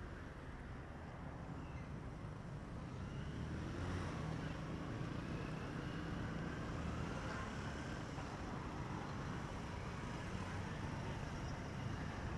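A motor vehicle's engine running nearby, growing louder over the first few seconds and then holding steady.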